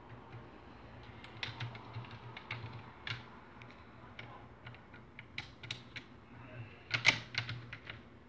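Irregular metallic clicks and clacks as the forend and slide of a Mossberg Maverick 88 pump shotgun are worked back and forth by hand while its action is lined up for disassembly, with a cluster of louder clacks about seven seconds in.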